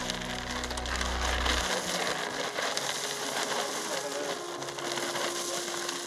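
Dry dog kibble rattling out of a sack onto a board, a steady crunching hiss, as a pack of dogs crowds in to eat. Background music with long low notes stops about two seconds in.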